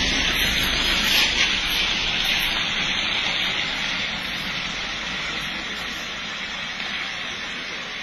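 Steady hiss of rain and vehicle tyres on a wet road, slowly fading.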